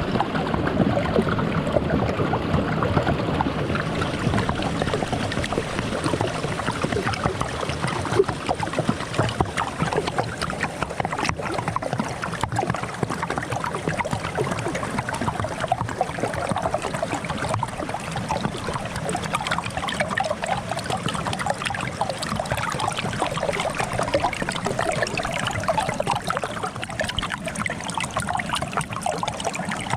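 Water running and gurgling under a sheet of frozen ice, a steady bubbling flow.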